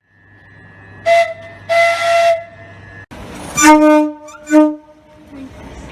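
UK train horns, two recordings spliced together. First a short blast and then a longer one on a higher tone. After an abrupt cut, a longer and then a short blast on a lower tone.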